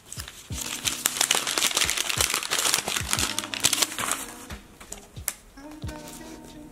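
Brown gift-wrapping paper crinkling and rustling as it is pulled off a present by hand. The crinkling is densest through the first four seconds or so and thins out near the end.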